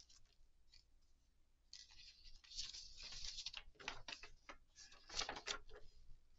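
A folded paper instruction sheet being pulled out and opened up: faint, irregular paper rustling and crackling that starts about a second and a half in, with the loudest crackles near the middle and again about five seconds in.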